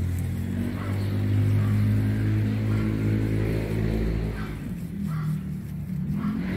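A vehicle engine running close by: a low hum that swells to its loudest a second or two in, fades, then rises again briefly near the end.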